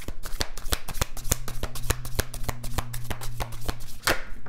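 A deck of tarot cards being shuffled by hand: a quick, even run of card snaps, about seven a second, with a louder rustle near the end.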